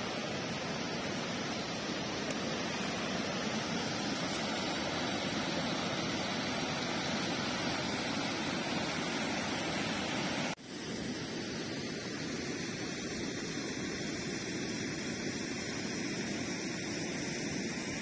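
Fast floodwater rushing over a washed-out spillway crossing, a steady, even rush of water. About ten seconds in the sound breaks off for an instant at a cut, then a similar steady rush carries on.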